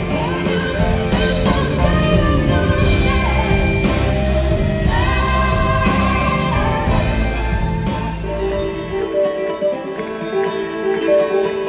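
Live country band playing a song with singing. About eight and a half seconds in, the bass and drums drop away, leaving plucked guitar and string notes.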